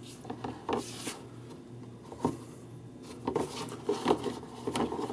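Leather knife sheaths being handled and shuffled on a cutting mat: scattered soft rubs and light taps, over a low steady hum.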